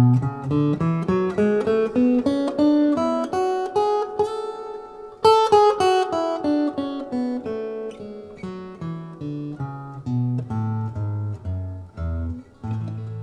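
Steel-string acoustic guitar playing the A major scale in single picked notes over two octaves: a steady run up to the top note about five seconds in, then back down, ending on the low A.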